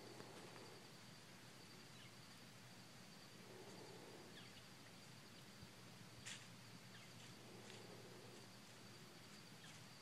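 Near silence: faint outdoor ambience with a thin steady high-pitched tone and a single soft click about six seconds in.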